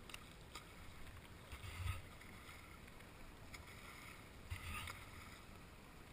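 Faint water lapping and sloshing around a helmet camera held at the lake surface, with two soft splashy swells, one just before two seconds in and one around four and a half seconds in.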